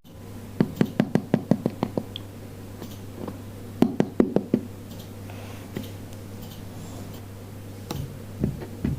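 Rapid light taps of a plastic doll being hopped along a hard surface as it is walked: a quick run of about a dozen taps, then a second shorter run a couple of seconds later, and a few fainter taps near the end.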